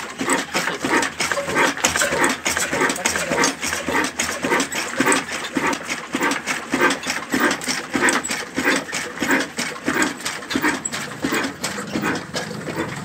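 Old 25 HP Hussain horizontal single-cylinder diesel engine running, with a fast, even beat of sharp exhaust chuffs and knocks.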